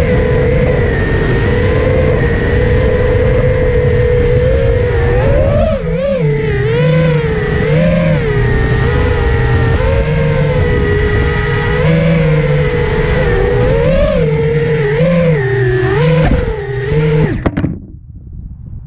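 Stingy V2 FPV quadcopter's brushless motors and propellers whining in flight, the pitch swinging up and down with throttle punches. The sound stops abruptly near the end.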